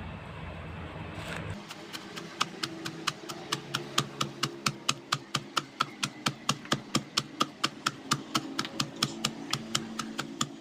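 Wooden pestle pounding cassava leaves and raw spices in a mortar: a steady run of quick knocks, about four strokes a second, starting about a second and a half in.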